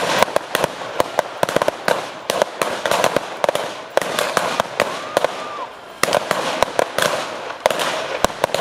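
Rapid, irregular gunfire from revolvers firing blanks in a staged shootout: many sharp shots, several a second, some in quick clusters.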